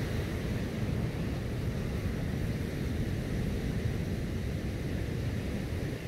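Steady low rumble of wind buffeting the microphone, with no distinct events.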